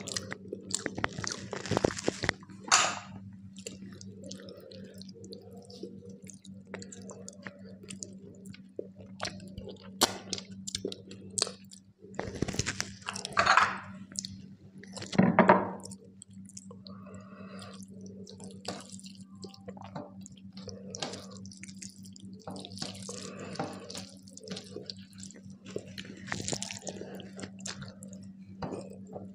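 Close-miked eating sounds of rice with dal and fish curry: wet squishing, smacking and chewing, with a few louder wet bursts. A steady low hum runs underneath.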